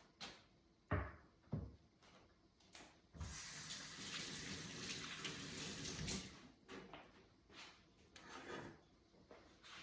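Kitchen tap running for about three seconds, with a few light knocks of kitchenware before and after.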